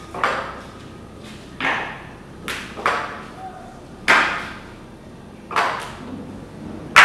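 A series of sharp knocks or impacts, about seven at irregular intervals of roughly a second, each ringing briefly before it fades.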